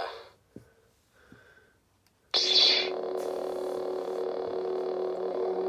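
Lightsaber sound board playing through its 3 W 28 mm bass speaker: the end of a voice clip, then about two seconds in a sudden ignition burst, followed by a steady electric hum as the blade stays lit.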